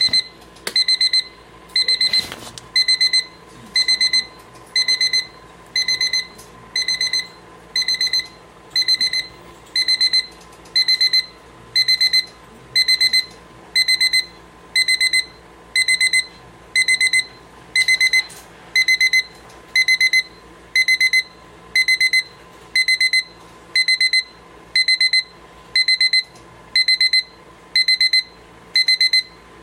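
RHYTHM solid-wood alarm clock's electronic alarm beeping: a high-pitched burst of rapid beeps about once a second, repeating evenly. A single click sounds about two seconds in.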